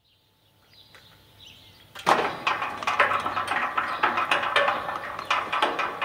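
Electric sliding gate starting to move: faint for the first two seconds, then about two seconds in a sudden loud, rattling clatter of the gate running along its track sets in and keeps going.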